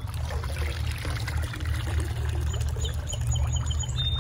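Water splashing and pouring as a metal bowl is dipped into a shallow stream and lifted out, water running off it, over a steady low rumble. A bird chirps a quick series of short high notes in the second half.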